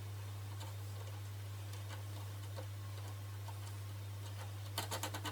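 Steady low electrical hum with a few faint ticks, then a short run of small clicks near the end.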